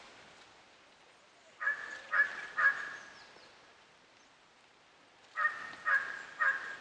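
Dholes (Asiatic wild dogs) giving short, high-pitched honking yelps: a run of three about a second and a half in, then a run of four near the end. These are the calls of a pack mobbing large prey.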